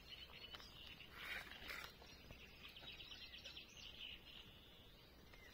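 Near silence: faint outdoor ambience with faint bird chirps, including a quick high trill around the middle.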